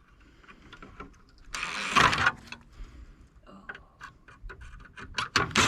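Metal parts and tools clattering while an air conditioner is taken apart: one loud clatter about two seconds in, then a run of small sharp taps near the end.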